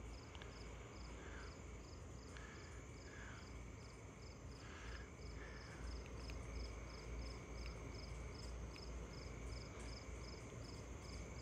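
Crickets chirping faintly in an even rhythm, about three chirps a second, over a steady high trill, with a few short lower calls in the first half and a low background rumble.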